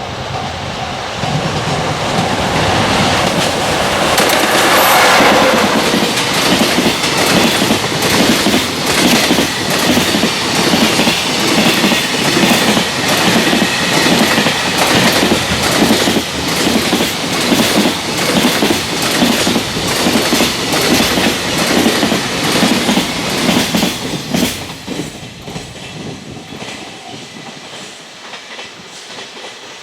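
A freight train passes at speed, loudest about five seconds in, its wheels clattering over the rail joints in a fast, even rhythm of clicks (clickety-clack). Near the end the sound fades as the last wagons go by, while a level-crossing bell rings.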